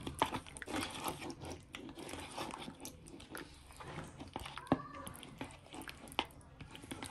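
A spatula mixing soya chaap pieces in a thick yogurt-and-cream marinade in a bowl, making irregular wet squelches and light scraping clicks.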